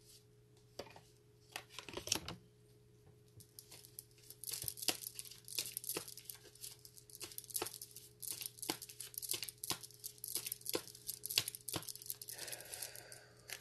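Tarot cards being shuffled by hand: a few single flicks, then from about four seconds in a long run of quick, crisp papery snaps and rustles that stops near the end.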